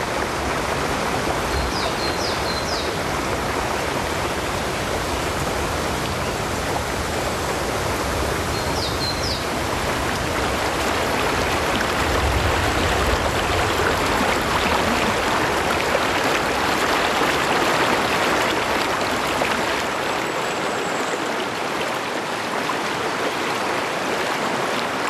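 Waterfall, water rushing steadily, with a few short high chirps about two seconds in and again about nine seconds in.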